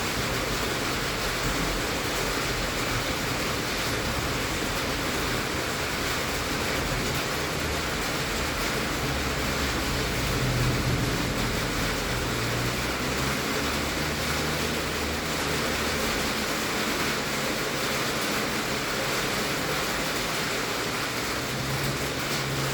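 Heavy rain falling on a tin roof, a steady dense hiss with no let-up. A faint low hum comes and goes underneath.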